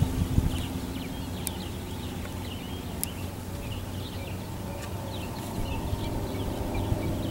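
Small birds chirping and twittering over a steady low hum, with a couple of sharp clicks about a second and a half and three seconds in.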